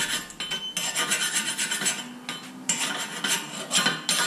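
A metal hand tool scraping over the Dodge Charger's steel front wheel hub in repeated quick rasping strokes, cleaning rust and corrosion off the hub face and its edges so the rotor will sit flat.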